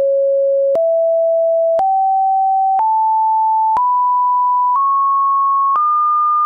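Pure sine-wave test tones stepping up the harmonic series of an A2 note (110 Hz): 550, 660, 770, 880, 990, 1100 and 1210 Hz, the 5th to the 11th harmonics. Each is held about a second, with a click at every change of pitch; the 7th (770 Hz) and 11th (1210 Hz) are pitches the ear cannot relate to the A.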